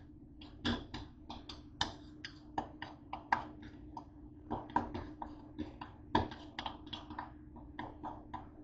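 Metal fork clicking and scraping against the inside of a bowl while stirring a thick mixture, in quick irregular taps about three to four a second. A faint steady hum runs underneath.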